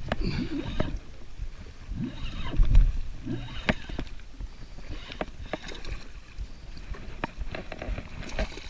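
Handling noise in a small fishing boat: scattered sharp clicks and knocks of gear against the hull, with a low thump about three seconds in.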